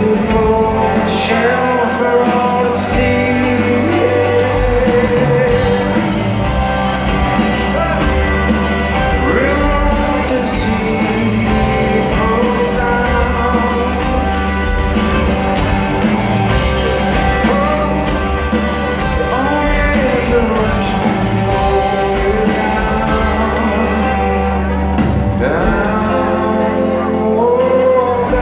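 Live rock band playing with a singer's vocal over electric guitar, bass and drums, heard from within the audience in a large hall.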